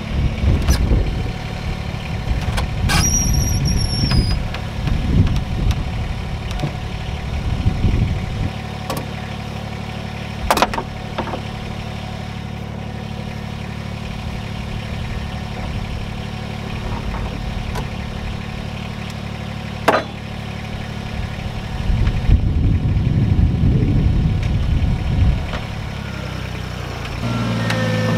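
Compact tractor's diesel engine idling steadily, with a few sharp knocks and spells of louder rustling over it. Near the end the engine note steps up as the throttle is raised.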